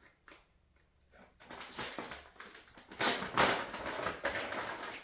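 Handling and rustling of parts packaging as a box is opened and its contents unwrapped. There are a few light clicks at first, then louder rustling from about three seconds in.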